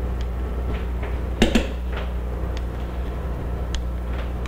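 Steady low electrical hum with a few scattered light clicks, the loudest a quick pair about a second and a half in.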